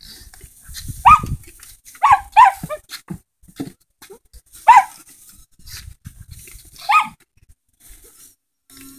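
A dog barking in short, sharp yaps, about five of them spread out, with patches of low rumble between.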